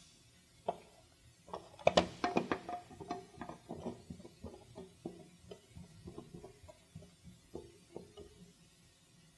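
A screwdriver driving a screw through a plastic wall cover into an electrical outlet's centre mount: a run of small clicks, scrapes and knocks of metal on plastic. It is loudest about two seconds in and dies away near the end.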